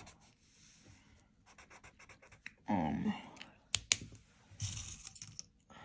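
Black marker tip scratching on paper in short strokes while colouring in a drawing's hair. A brief voice sound comes about three seconds in, followed by two sharp clicks.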